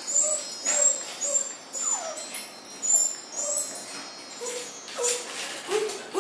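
Twinkling chime-like background music of short high bell notes, with toy poodle puppies giving a few short whimpers, one a falling whine about two seconds in.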